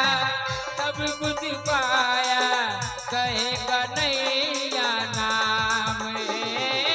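Live devotional bhajan music: a gliding, wavering melody over dholak drum strokes whose low tones slide downward, several beats a second.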